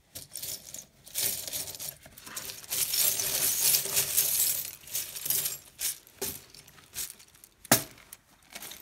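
Small charms clinking and jingling in a velvet drawstring bag, with a rustling of fabric and a few sharp clinks; the sharpest clink comes near the end.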